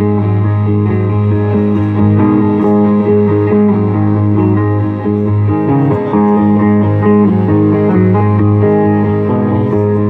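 Hollow-body electric guitar played live and amplified, with a low note sustained beneath the picked and strummed notes.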